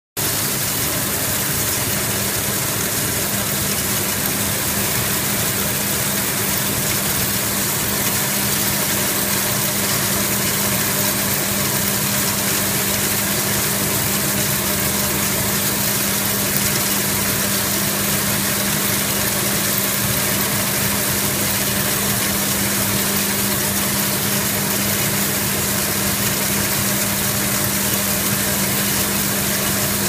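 Brush-roller seashell washing machine running steadily: a constant low hum from its drive under an even hiss as the brush rollers turn the shells.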